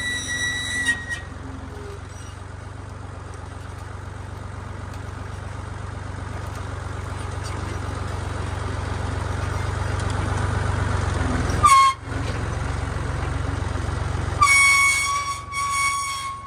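Massey Ferguson 148 tractor's diesel engine running, growing steadily louder for about ten seconds. Near the end a brief high-pitched tone, then a steady horn-like high-pitched tone for about two seconds.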